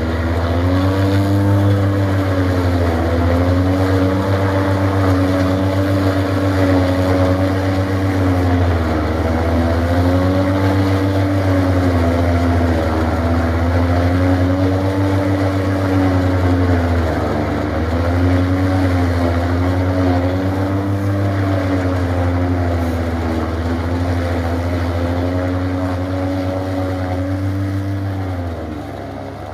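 Tractor engine driving a forage chopper that is shredding dry corn stalks, running steadily under load; its pitch sags briefly every several seconds as bundles of stalks are pushed in. The sound fades out near the end.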